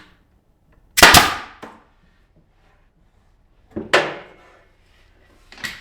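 Three sharp knocks a few seconds apart, the first the loudest, with a short ringing tail.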